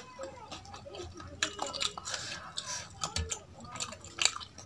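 Close-miked, wet eating sounds: fingers squelching and mixing food in a bowl of dal, with chewing and scattered sharp mouth clicks.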